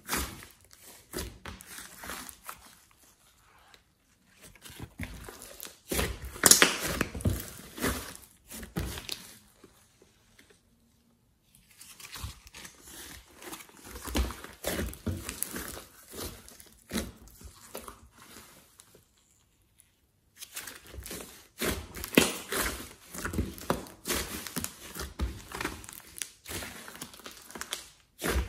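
Glossy slime mixed with clay and glitter being squeezed and kneaded by hand, giving rapid sticky crackling clicks. The crackling comes in three spells, with short quiet pauses between them, about four and ten seconds in and again near twenty seconds.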